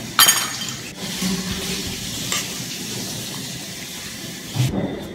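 Cream-and-mushroom sauce simmering in a stainless steel sauté pan over a gas flame with a steady sizzling hiss. A sharp clatter comes just after the start and a lighter knock a little over two seconds in. The hiss drops away near the end.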